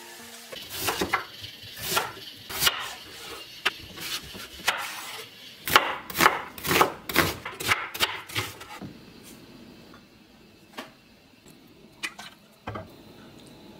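Kitchen knife slicing daikon radish and onion on a wooden cutting board: a quick, irregular run of chops for about eight seconds, then it stops. A few light knocks follow near the end.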